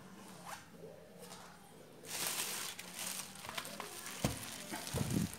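Plastic rice-dispenser parts being handled: a rustling scrape lasting about a second, then two short knocks near the end.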